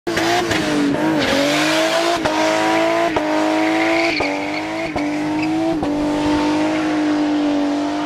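Car doing a burnout with its tires squealing. The engine is held at high revs, its pitch creeping up and dropping back sharply about once a second.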